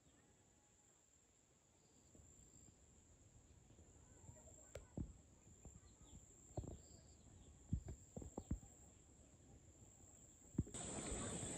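Near silence with a faint, steady high-pitched insect drone and a few faint chirps, and a scattered run of soft taps between about four and nine seconds in. A louder outdoor background hiss comes in near the end.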